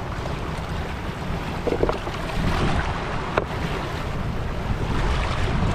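Wind buffeting the microphone over small waves washing against a rocky shore, with one sharp click about three and a half seconds in.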